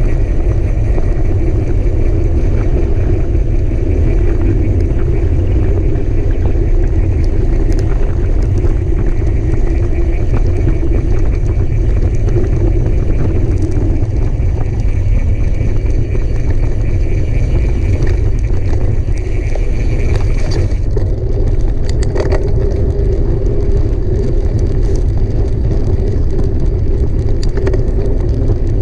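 Heavy wind rumble on the microphone of a mountain bike ridden at race pace, with scattered clicks and rattles from the bike and tyres over the trail.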